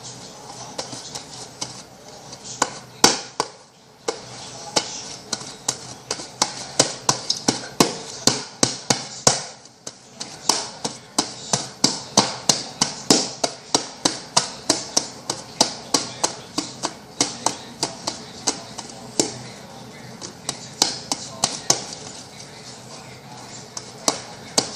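Homemade glue-and-borax slime being kneaded and squeezed by hand, giving a string of sharp, wet clicks and pops, often two or three a second, that mark the slime as nearly finished.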